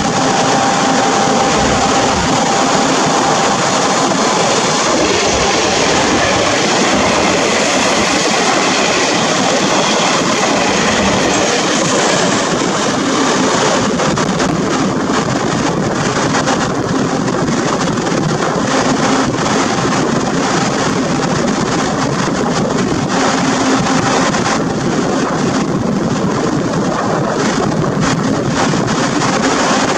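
Passenger trains running past on the line: a steady, loud rush of wheels on rail.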